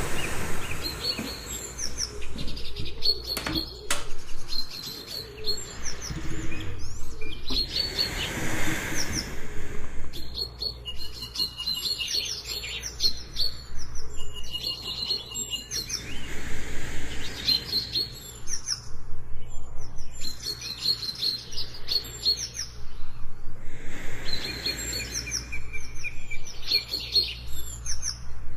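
Jungle birds chirping and calling, many short high calls repeating and overlapping, over a steady low rumble. A soft breathing hiss swells and fades about every eight seconds.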